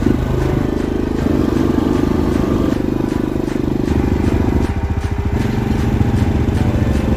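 Quad bike (ATV) engine running under throttle while riding through snow, its revs shifting. About five seconds in it eases back to a lower, pulsing beat as the bike slows.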